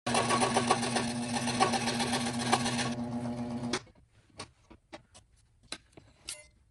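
Wen scroll saw running and cutting a wooden panel, a steady buzzing machine sound with a constant low hum. It stops abruptly a little under four seconds in, and only faint scattered clicks and knocks follow as the fretted piece is handled on the saw table.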